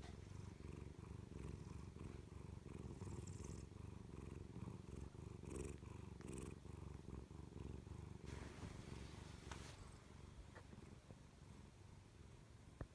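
Domestic cat purring steadily, a low continuous rumble, with a brief rustling noise about two-thirds of the way through.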